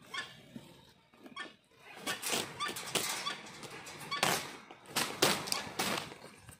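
White-bellied sea eagles giving short, repeated calls while grabbing at meat, with loud bursts of wing flapping and scuffling. These are densest from about two seconds in.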